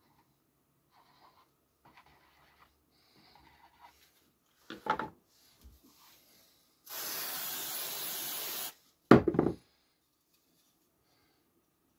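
Aerosol spray hissing steadily for about two seconds onto an MDF panel, then a quick cluster of sharp wooden knocks as a moulding strip is set down on it. Light handling scuffs and a couple of smaller knocks come before the spray.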